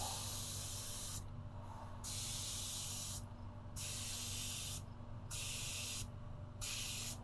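Air-fed gravity-cup paint spray gun hissing in repeated bursts of about a second each with short breaks, switching on and off with each pass along the car body. A steady low hum runs underneath.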